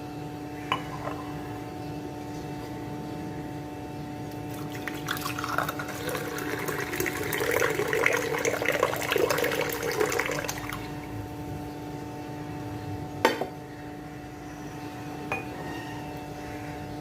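Water being poured into a glass for about six seconds over a steady electrical hum. There is a light click just under a second in and a sharp clink about 13 seconds in.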